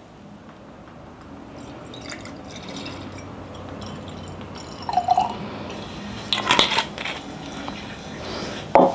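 Red wine poured from a glass bottle into a stemmed wine glass, a steady stream filling the glass. Sharp knocks follow about six and a half seconds in and again near the end as the bottle is set down on the table.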